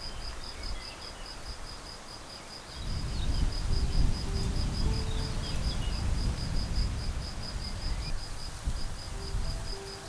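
A cricket chirping in a high, even pulse about five times a second. A louder low rumble comes in about three seconds in and fades near the end, with a few faint bird notes.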